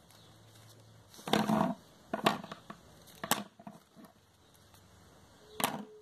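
Handling noises on a tabletop: ribbon rustling and crinkling as it is sewn, in a few short, sharp bursts, the loudest about a second in. Near the end comes a clack as a pair of scissors is set down on the table.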